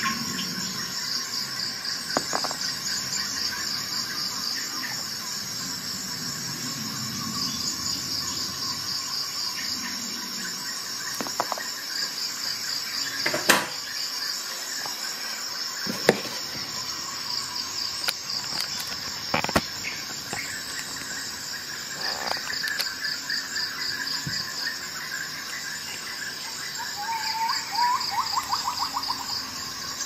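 Steady, high, pulsed cricket chirping, with a few sharp clicks and knocks scattered through it.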